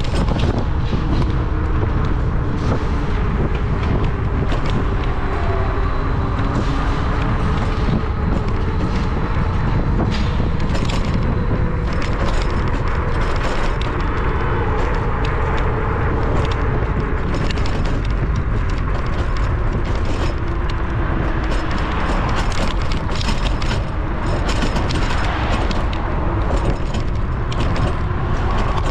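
Riding a bicycle on a city street: steady wind on the microphone and road rumble, with frequent light rattles and clicks.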